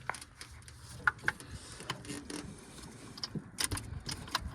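Irregular sharp metallic clicks and clinks of a socket wrench and loosened spark plugs being handled, busier near the end.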